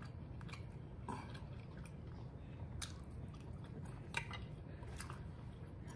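A person chewing food with the mouth closed: soft, wet mouth clicks and smacks a few times a second, scattered and uneven.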